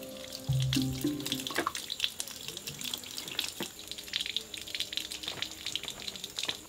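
Water trickling from a spout and splashing over hands as freshly picked long beans are rinsed under it. Soft background music plays, clearest in the first second or so.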